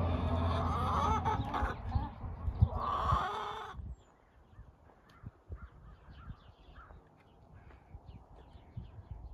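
A flock of large birds calling as they fly overhead, a dense chorus of loud calls over a low steady hum. About four seconds in it cuts off suddenly, leaving only faint scattered calls.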